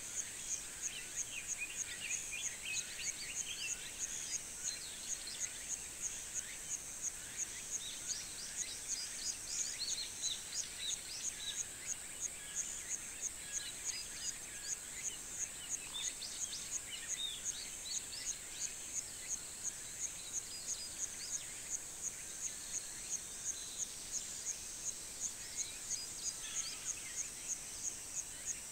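Countryside dawn chorus in summer: an insect's high-pitched chirp repeating evenly about twice a second, with many small birds calling and twittering in short scattered phrases over it.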